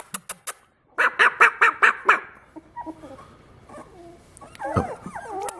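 Young beagle puppies whimpering and squealing in thin, high, rising-and-falling cries, with a quick run of short sharp sounds about a second in.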